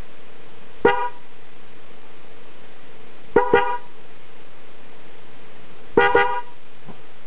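Toyota genuine Denso electric car horn sounded in short toots: one about a second in, then two quick double toots. Each blast is a brief, buzzy, mid-pitched honk rich in overtones.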